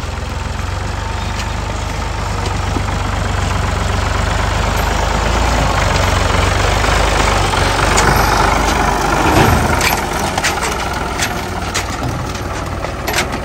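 Ford 4600 tractor engine running under load as the tractor drives past, growing louder and closest about two-thirds of the way through. After that come scattered sharp clicks and knocks.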